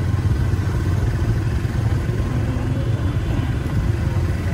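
Steady low rumble of street traffic with motorbike engines running, and faint voices in the background.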